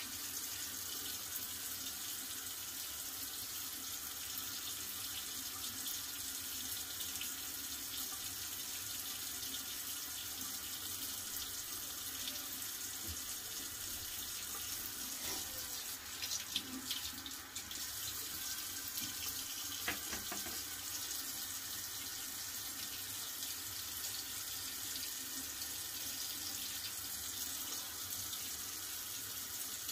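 Bathroom tap running steadily into the sink, a constant water hiss that gets briefly louder and rougher about halfway through.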